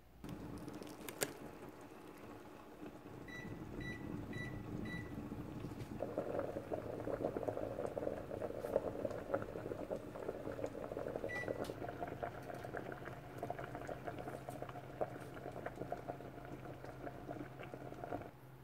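Water boiling hard around whole potatoes in a stainless-steel pot under a glass lid on high heat, the bubbling growing busier and louder about six seconds in. A click near the start, four short high beeps a few seconds in and one more later on, and a steady low hum under the boil in the second half.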